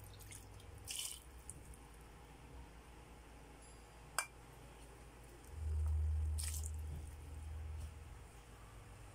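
Dark squid broth dripping and trickling from bowls into a rice cooker's inner pot, with a light clink about four seconds in. A low rumble swells around six seconds in and fades by eight.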